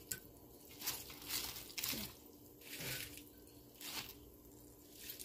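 Soft rustling and squishing of cabbage leaves being handled and pressed into a pot of water, a few faint rustles about a second apart.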